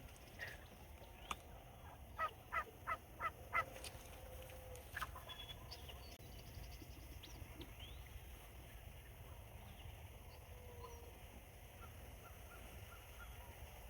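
A series of five turkey yelps, about three a second, a little over two seconds in, followed by faint scattered bird chirps.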